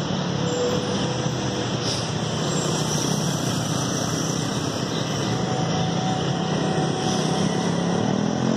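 Steady road traffic noise: a continuous low rumble under a broad hiss.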